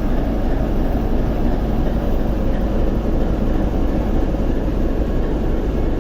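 TEP70 diesel locomotive's V16 diesel engine idling steadily, freshly started after repair and not yet warmed up.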